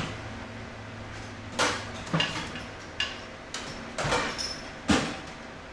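Metal tools and parts knocking and clanking, about five separate knocks with a short metallic ring, over a steady low hum.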